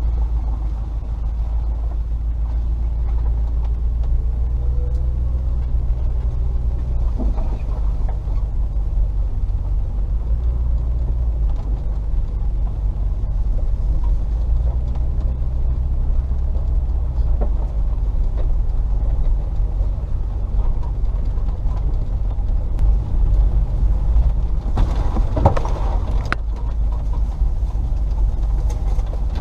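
Range Rover P38's 4.0 V8 engine and drivetrain rumbling steadily at low speed on a rough track. A brief louder noise cuts in near the end.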